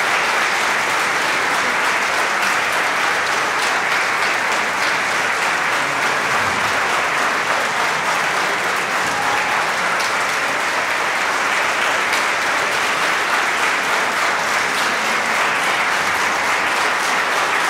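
Concert audience applauding, a steady, dense patter of many hands clapping that keeps up without a break.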